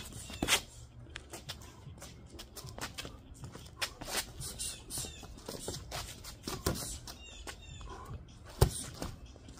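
Kickboxing sparring: irregular sharp slaps and thuds of boxing gloves and shin guards landing, with feet shuffling on paving stones. The loudest hit comes about eight and a half seconds in.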